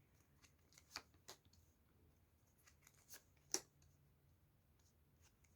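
Faint, sparse clicks and snaps of a tarot deck being shuffled by hand, the loudest about three and a half seconds in.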